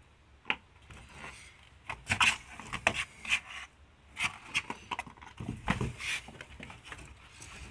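Irregular short scratches and rubs as a cat paws at a wooden door panel.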